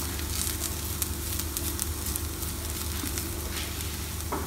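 Shallots, garlic, ginger, green chillies and spice powders sizzling steadily in coconut oil in a frying pan while being stirred with a wooden spatula, with scattered light crackles. The masala is fried through.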